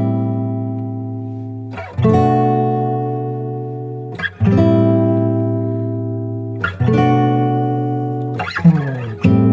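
Background guitar music: chords strummed and left ringing, a new one about every two and a half seconds, with quicker strums near the end.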